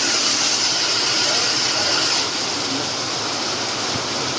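Heavy rain mixed with small hailstones drumming on a warehouse roof, a loud, steady racket of noise that eases slightly about two seconds in.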